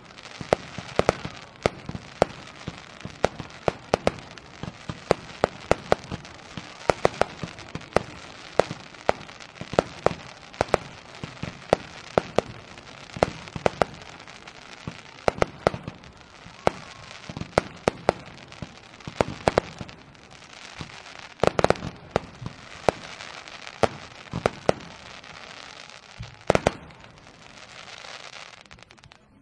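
Fireworks going off: many sharp bangs, often in quick runs, over a continuous crackle and hiss. The bangs stop after a last loud one near the end, leaving only the crackle.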